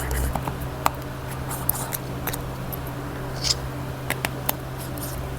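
Small, irregular clicks and taps as tools work on the parts of an opened Oppo A54 smartphone during disassembly, over a steady low hum.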